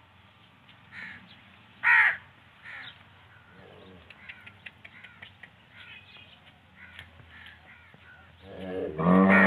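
Crows cawing a few times in the first three seconds. Near the end one of the cattle lets out a loud, long moo that wavers in pitch.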